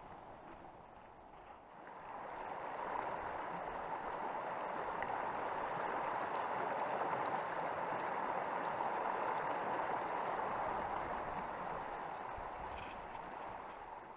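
Silty creek water rushing steadily, getting louder about two seconds in and then holding.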